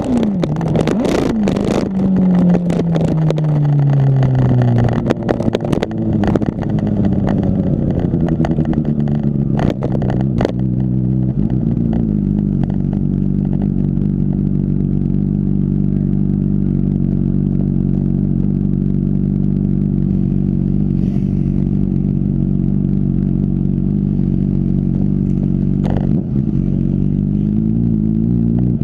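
Honda CBR600RR inline-four running through a Two Brothers aftermarket exhaust: the engine note falls as the bike slows over the first few seconds, a few sharp clicks come about ten seconds in, then it idles steadily, and it rises slightly near the end as the bike pulls away.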